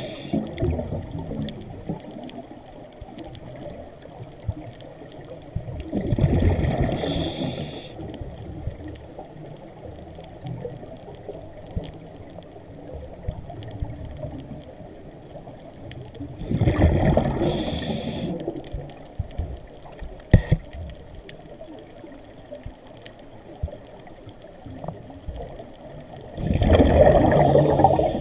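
Scuba diver's regulator breathing underwater: three loud bubbling breaths about ten seconds apart, each ending in a hiss. Between them there is a faint steady underwater background, and a single sharp click sounds about twenty seconds in.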